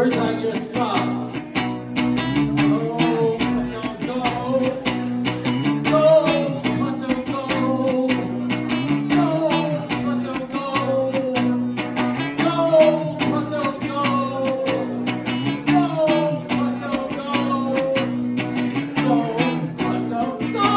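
A live rock band playing an instrumental passage: guitars over a steady beat, with a falling phrase repeated every few seconds.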